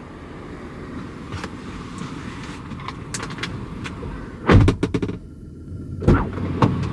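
Inside a car: a steady low engine and road rumble, with scattered light clicks and a few sharp thumps, the loudest about four and a half seconds in.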